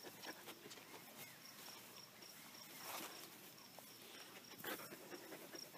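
Near silence with a cricket chirping faintly in a high, even pulse, about four chirps a second, and a few soft rustles.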